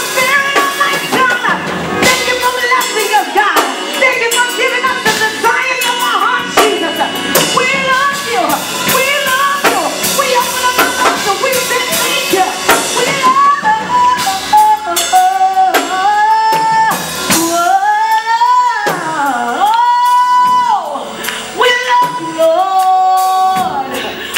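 A woman singing solo through a handheld microphone and PA over live instrumental accompaniment. From about halfway through, the accompaniment thins and her voice carries long held notes that swoop and bend in pitch.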